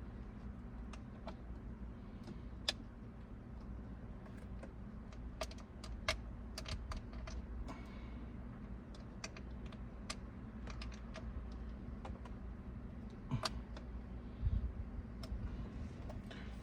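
Small irregular clicks and taps of a hand tool working the screws on the back of a steering wheel, spaced unevenly over a low steady hum.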